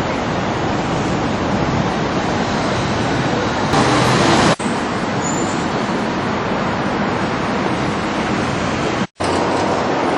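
Steady, loud urban traffic noise, cutting out abruptly for an instant twice.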